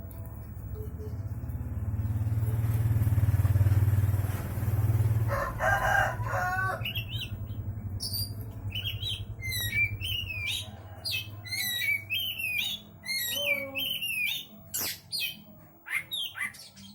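Oriental magpie-robin (kacer) singing a fast, varied run of sweeping whistled phrases, thickening from about halfway through. Before that, a low rumble swells and fades in the first few seconds.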